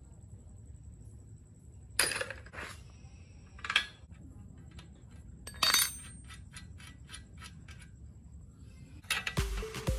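Steel tools and parts clanking against a steel mini-bike frame as the rear shock absorber is bolted in: several sharp metal clanks, then a run of light ticks at about four a second as a nut and bolt are worked. Music comes in near the end.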